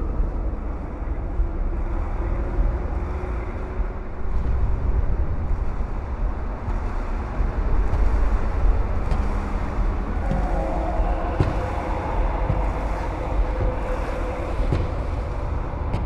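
Deep, steady rumble with a hiss over it and a few sharp clicks in the second half.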